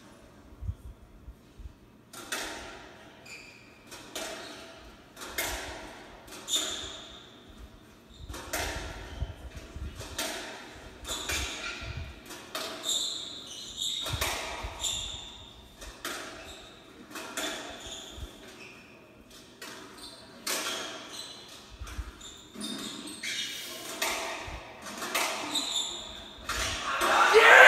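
Squash rally: the ball struck by racquets and hitting the court walls about once a second, each crack echoing in the glass-backed court, heard through a TV's speakers. Cheering breaks out in the last second as the point ends.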